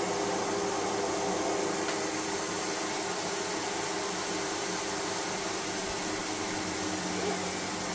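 Sebo Automatic X1 upright vacuum cleaner running steadily on a rug: an even motor hum with a rushing hiss of air.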